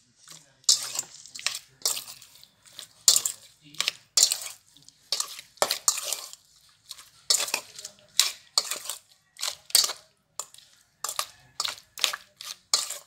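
Hands kneading raw beef chunks with chopped garlic in a stainless steel bowl: wet squishing of the meat and knocks of hand and meat against the metal bowl, in short irregular bursts about twice a second.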